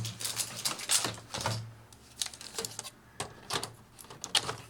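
Irregular plastic clicks and knocks of a mechanical keyboard assembly being handled and shifted in a Commodore 64C case.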